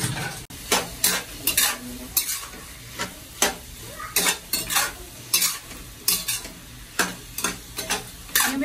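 A metal spatula scrapes and turns chicken, shiitake mushrooms and peppers in a stainless honeycomb wok, at about two scrapes a second, over the steady sizzle of stir-frying.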